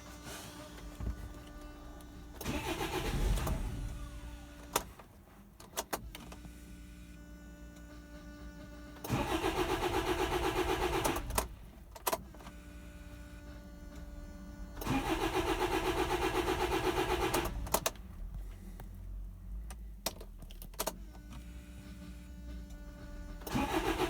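Land Rover Freelander TD4's 2.0-litre diesel cranked on the starter four times, each try lasting about two to three seconds and ending abruptly without the engine running on. This is a non-start that the owner suspects is a timing or fuel fault. Between the tries, the electric low-pressure fuel pump buzzes steadily.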